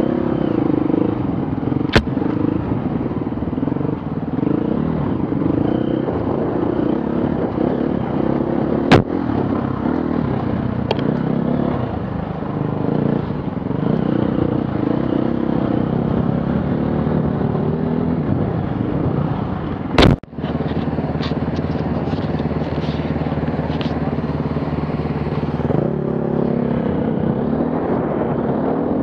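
Off-road vehicle engines running and revving, the pitch rising and falling as the vehicles work through the course. Three sharp knocks cut through, the loudest about two-thirds of the way in.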